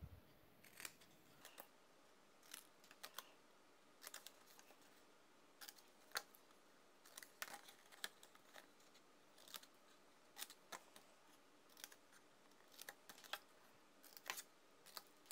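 Small scissors snipping cardstock: many short, quiet snips at irregular intervals as small corners are cut away.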